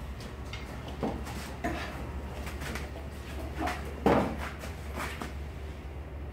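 Scattered knocks and clicks of stand air-conditioner parts being handled, the loudest about a second in and about four seconds in, over a steady low hum.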